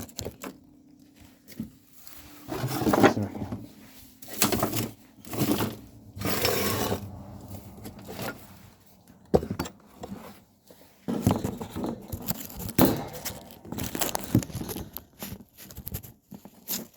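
Irregular handling noises from a cable being worked loose and rerouted inside a piano: scrapes, rustles and light knocks coming in uneven bursts.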